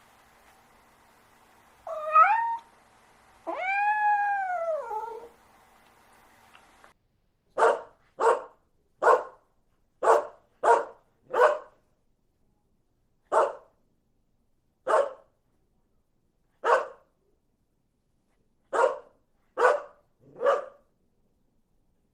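A cat meows twice, a short one and then a longer drawn-out one. After a pause, a dog barks about a dozen times in short single barks, spaced irregularly.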